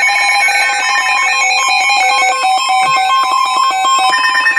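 Electronic alert tone: a loud melody of buzzy beeping tones that jump in pitch several times a second, announcing an incoming weather alert.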